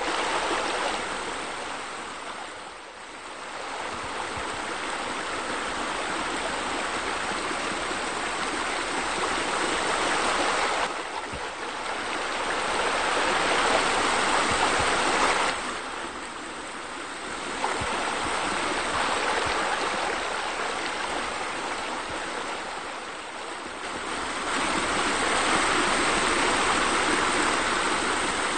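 Steady sound of falling, splashing water, like a small rock waterfall spilling into a pool, growing louder and softer several times.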